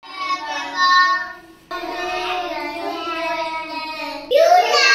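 A young boy singing in long, drawn-out notes, with a short break about a second and a half in and a louder, higher-pitched stretch near the end.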